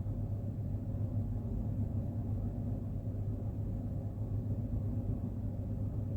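Steady low rumble with a faint hiss from the lit stove while masala paste fries in the pan.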